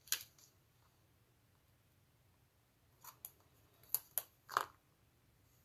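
Small clicks and crackles of a glue dot being peeled off its backing strip and pressed onto a cardstock piece: one click at the start, then about five short faint ticks and taps between three and five seconds in.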